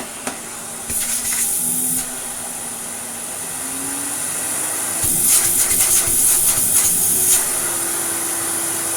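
AEG Vampyr 7202 cylinder vacuum cleaner running with a steady rushing hiss of air. The motor hum rises in pitch about four seconds in as the variable power is turned up. There are louder, crackly bursts of rushing air about a second in and again from about five to seven seconds.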